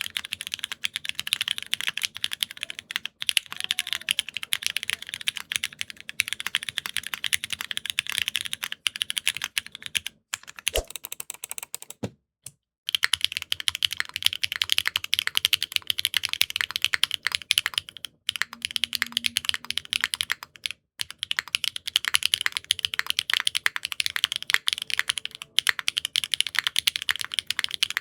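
Fast continuous typing on a TGR x Singa Unikorn 2.1 custom mechanical keyboard: linear switches in a soldered aluminium-plate build with no foam, under ABS keycaps, giving a rapid clacking. The typing stops briefly about twelve seconds in, then carries on.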